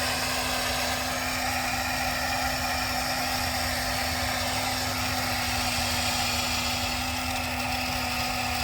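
Toy RC excavator's small electric motors and gearing running steadily, a constant even whine.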